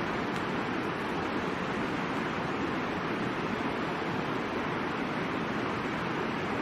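Steady rush of the Middle Fork of the Boise River, flowing water at an even level.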